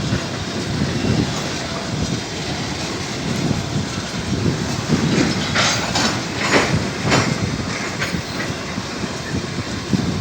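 Freight train cars rolling past on the rails with a steady rumble and clatter of wheels on track. About five and a half to seven seconds in come a few short, sharp metallic sounds.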